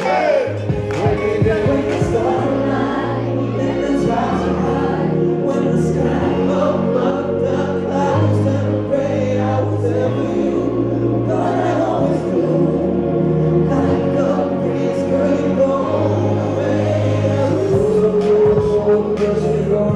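Live pop/R&B song: male vocalists singing into microphones, more than one voice at a time, over amplified backing music with sustained bass notes.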